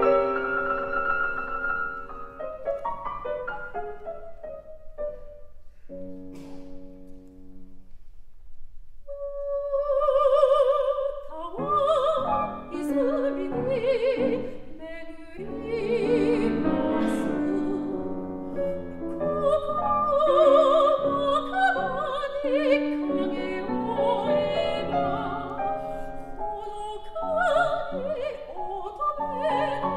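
Steinway grand piano plays held chords that ring and fade. About nine seconds in, a soprano enters on a long note with wide vibrato and goes on singing a classical song with the piano accompanying.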